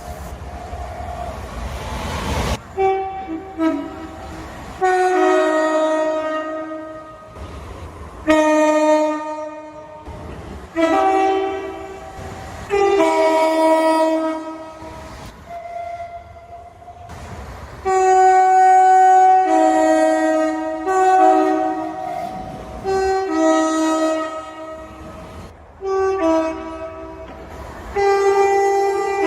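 A string of train horn blasts, each cut short by the next. Most are two-note high–low horn calls, and between them is the rumbling noise of a moving train.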